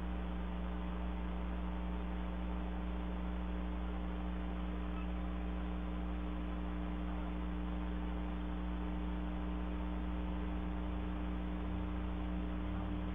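Steady electrical mains hum with an even hiss, picked up through a security camera's built-in microphone; nothing else happens.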